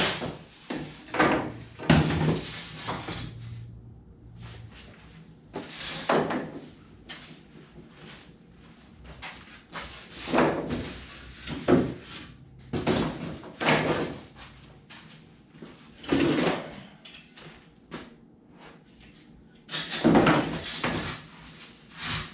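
Rigid foam board being cut by hand: a dozen or so separate scraping strokes of the blade through the foam, irregular, with pauses between.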